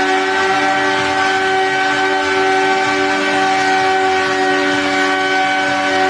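XTurismo hoverbike hovering, its propellers giving a steady whine of several held tones over a rushing noise, with no change in pitch or level.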